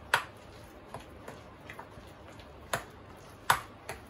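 Metal spoon stirring thick urad dal batter in a ceramic bowl, clinking against the bowl in irregular clicks. A few are louder knocks, just after the start and in the last second and a half.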